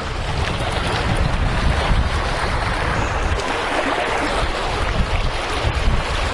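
Wind buffeting the microphone in irregular low gusts, over a steady rushing noise.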